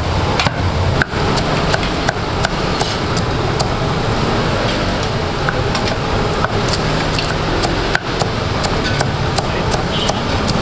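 Large kitchen knife chopping crispy deep-fried pork on a wooden chopping block: repeated sharp chops at an irregular pace, about one or two a second, over a steady background rumble.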